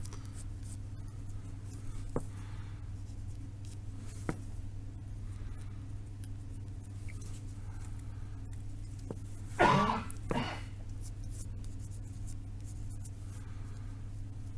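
Faint scratching of a pencil drawing on a small card over a steady low hum, with a person coughing twice in quick succession about two-thirds of the way through.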